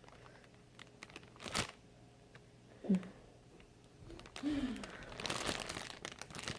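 Packaging crinkling and rustling as it is handled, the rustling growing louder over the last second and a half. A single sharp click comes about a second and a half in, and two short faint vocal sounds come around three and four and a half seconds.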